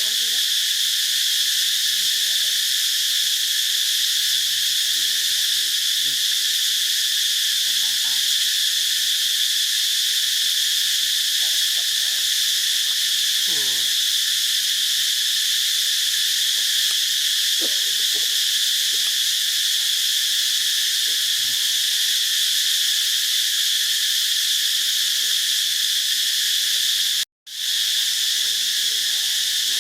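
A steady, high-pitched insect chorus of crickets or cicadas droning without a break, cutting out for an instant near the end.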